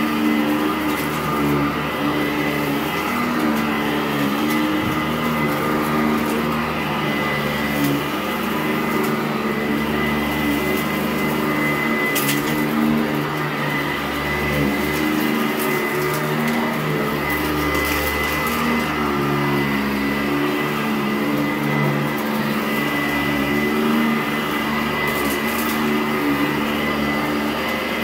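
Sanitaire SC899 direct-air commercial upright vacuum running while pushed back and forth over carpet, with a steady high motor whine and a lower hum whose pitch dips and rises every couple of seconds. A few sharp crunches of grit being picked up, one about halfway through and another near the end.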